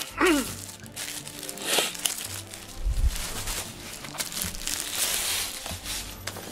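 Clear plastic wrap crinkling and rustling as a rolled bamboo rug is handled and unwrapped, in irregular bursts.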